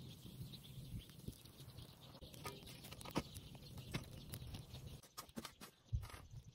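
Wood fire crackling around a tin-can oven, with scattered sharp pops. Near the end a shovel scrapes and crunches through the embers and gravel, with one louder knock.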